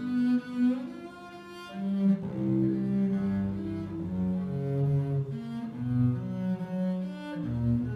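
Solo cello, bowed, playing a slow berceuse (lullaby) melody of held low notes that move from pitch to pitch about every half second to second.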